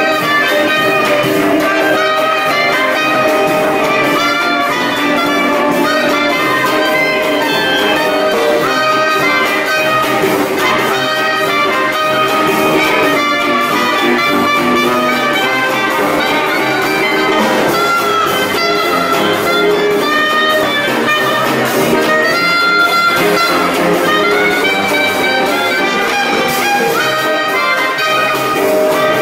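Live traditional jazz band playing: trumpet and two clarinets carry interweaving melody lines over sousaphone, drum kit and guitar.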